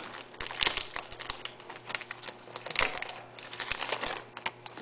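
Baseball cards handled and flipped through, with irregular crinkling and many small clicks and snaps as the cards slide over one another, over a faint steady hum.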